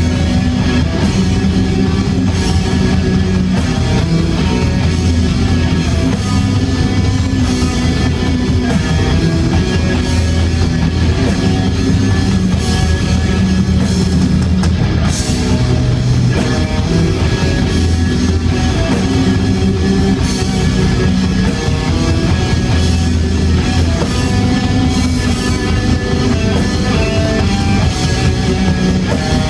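Death metal band playing live through a venue PA, heard from the audience: distorted electric guitars, bass guitar and drum kit playing loudly.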